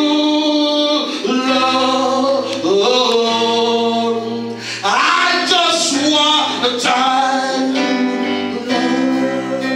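A worship song being sung with instrumental accompaniment: voices holding long notes over steady low instrumental tones.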